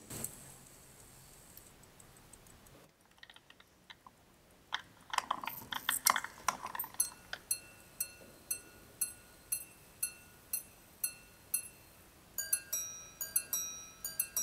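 Minute repeater of a Speake-Marin Crazy Skulls watch chiming the time. Small clicks come first, then a louder clicking of the mechanism about five seconds in. After that the gongs strike about ten slow, even, ringing notes at roughly two a second, and near the end quicker strikes alternate between two other pitches.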